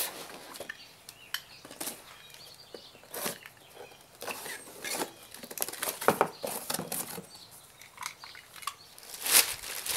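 Cardboard boxes being handled and opened: flaps rubbing and scraping, with scattered light knocks and taps as an inner box is set down and unpacked, and a louder knock about nine seconds in.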